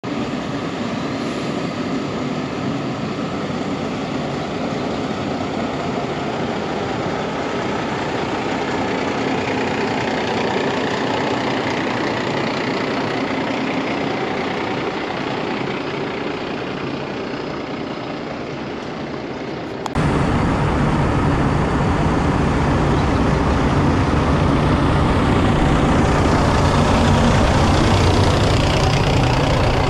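Heavy diesel engine of a Peterbilt 389 dump truck idling steadily. About two-thirds of the way through it cuts abruptly to a louder, deeper idle.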